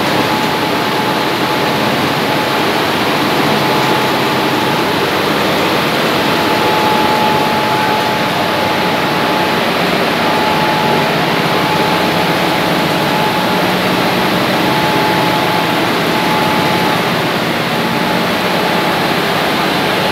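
Indian Railways electric locomotive's cooling blowers running, a loud steady rush of air with a constant whine over it.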